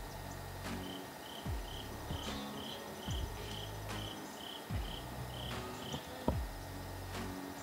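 Cricket chirping in a steady series, about three chirps a second, over quiet background music with a low pulsing bass and falling low swells.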